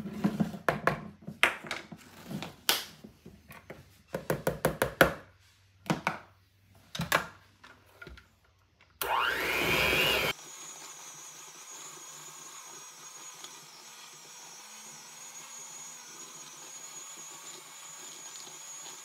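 A series of clinks and taps of a spoon and measuring cup against a mixing bowl. About nine seconds in, an electric hand mixer starts with a rising whir, loud for its first second or so, then runs steadily at a lower level, beating cream cheese and powdered sugar.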